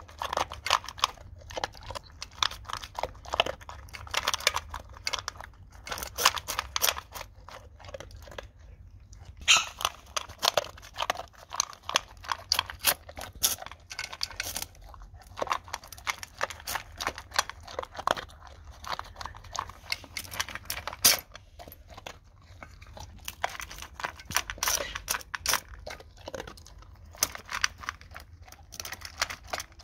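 A dog crunching and chewing dry kibble from a stainless steel bowl, an uneven run of crunches and clicks with a short pause about nine seconds in.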